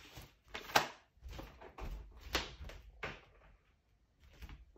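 Art supplies being handled and set aside: a few scattered knocks and clatters, the sharpest about a second in, with quieter handling noise between.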